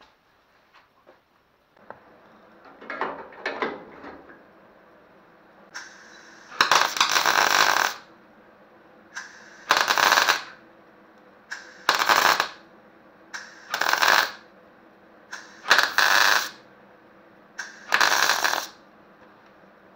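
MIG welder crackling through a series of short weld runs on thin car-body steel, laid to reinforce a cracked bump stop bracket: six bursts about two seconds apart, the first the longest, after a few knocks of handling.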